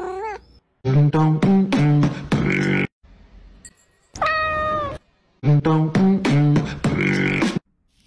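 Dubbed vocal sound effects: a quick rhythmic run of short pitched voice notes, then one long meow-like call, then the same run of notes again.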